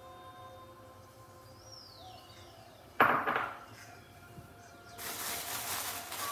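A single loud knock of kitchenware about three seconds in. About two seconds later a steady hiss starts and keeps going. A faint bird chirp is heard before the knock.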